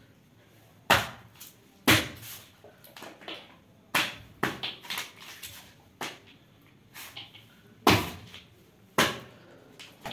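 Bare foot stamping on small plastic pouches on a tile floor: a series of sharp thuds and cracks, a second or a few seconds apart, with lighter knocks and crinkles between.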